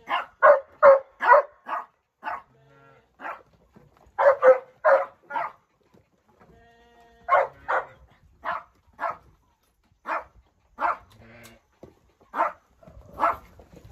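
Runs of short, sharp animal calls, four or five in quick succession, repeated several times. A few longer calls held on one pitch come between them, like sheep bleating.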